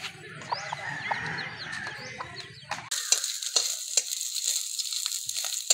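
Fish frying in hot oil: a dense, crackling sizzle that sets in abruptly about three seconds in. Before it there is a low rumbling background with short bird-like chirps.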